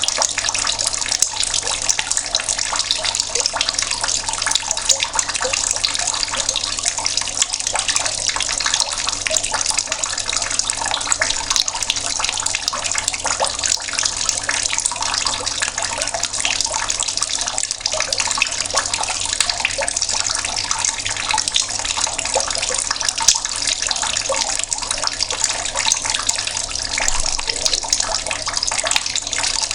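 Water running steadily from a tap and splashing, a continuous dense patter.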